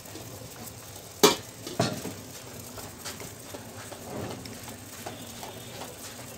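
Metal cookware being handled: a sharp clink about a second in, a second clink half a second later, then a few light knocks, over a low steady hiss from the hot pot of spiced water.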